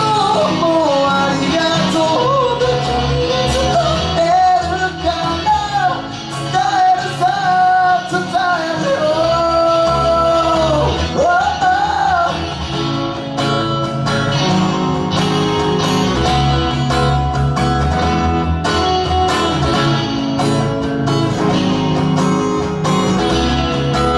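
Live band music: a male voice singing over strummed acoustic guitar, electric guitar and bass guitar. The singing stops about halfway and the guitars play on.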